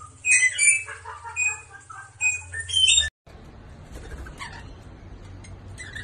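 Two caged rosellas chattering: a fast run of sharp chirps and squawks for about three seconds. The sound then cuts to a quieter steady hiss with faint splashing, as a rainbow lorikeet bathes in a bird bath.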